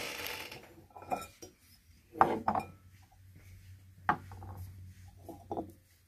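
Glass and china pieces clinking and knocking together as they are handled and set down, several separate clinks, with a short rustle at the start.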